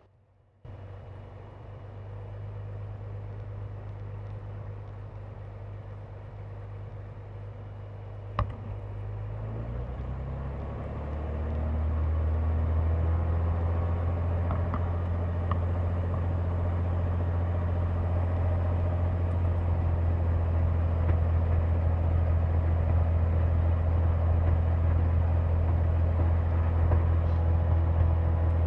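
Cirrus SR22's six-cylinder Continental engine in a ground run-up: running at low rpm, then brought up to a steady higher rpm about ten seconds in for a magneto check, with a single sharp click about eight seconds in. The run-up is meant to bring out a knocking and rough running that the owner later traced to a missing fuel-injector gasket on the #2 cylinder, which made that cylinder run lean.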